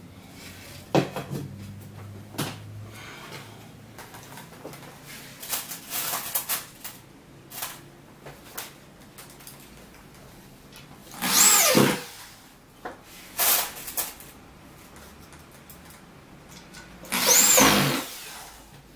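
Electric drill run in short bursts, driving screws into the joints of a flat-pack drawer; each run spins up and winds down, two longer runs about eleven seconds in and near the end with a brief one between. Before that, knocks and clatter of the drawer panels and hardware being handled.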